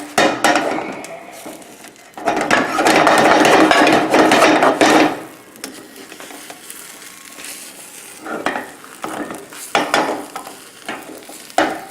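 Omelette cooking in a frying pan, with a spatula scraping and clicking against the pan. A louder, rough scraping noise lasts about three seconds, starting a couple of seconds in.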